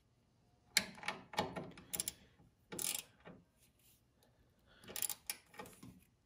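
Ratchet wrench clicking in four short bursts as a nut is run down onto a bolt.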